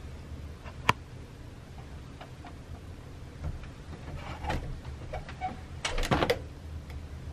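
A few light clicks and taps: one sharp click about a second in, scattered small ticks, and a quick cluster of clicks around six seconds.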